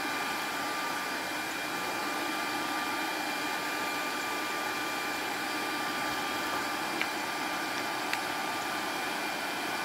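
Hair dryer used as a forge blower, running steadily: a constant rushing hum with a thin high whine, pushing air up the pipe into the coal forge. Two faint ticks come near the end.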